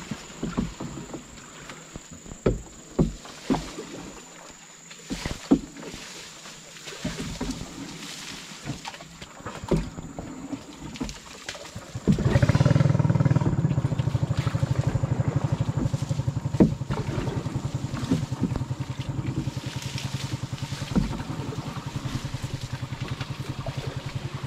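Branches and twigs scrape, snap and knock against a wooden canoe as it is hauled by hand through dense swamp vegetation. About halfway through, a small boat engine starts abruptly and runs steadily with a fast, even pulse.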